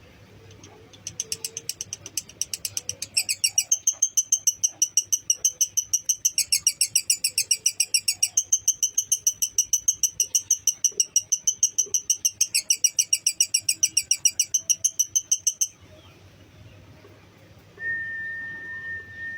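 Lovebird giving a long, rapid 'ngekek' chatter trill of fast, even high-pitched pulses that steps up and down in pitch a few times, lasting about fifteen seconds before stopping abruptly. Near the end, a brief steady whistle-like tone slides down as it stops.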